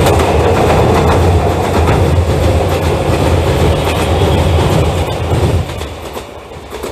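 Red Meitetsu electric commuter train passing over a steel girder bridge: a low rumble with wheels clicking over the rail joints. The sound falls away about five and a half seconds in, as the last car clears the bridge.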